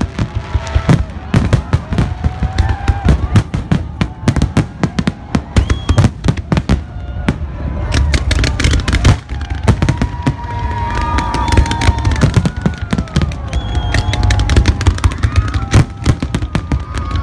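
Aerial fireworks display: a continuous barrage of shell bursts and crackling bangs, several a second, over a deep rumble.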